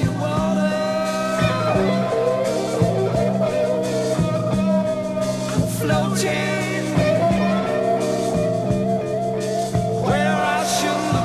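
Late-1960s psychedelic rock recording: electric guitars over bass and drums, with a held high note and a few cymbal crashes.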